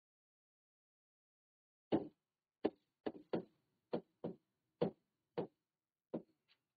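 Marker tapping and knocking against a whiteboard while writing: about ten short, irregular taps, starting about two seconds in.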